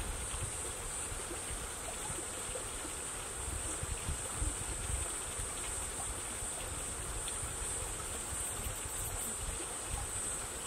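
Steady background ambience: an even hiss with a continuous high-pitched drone that holds all through, over an irregular low rumble.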